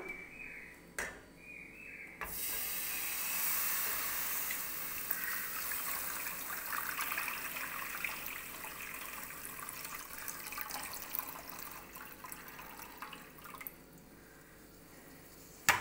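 Water pouring into a cooking pot in a steady stream, starting suddenly about two seconds in and tapering off near the end.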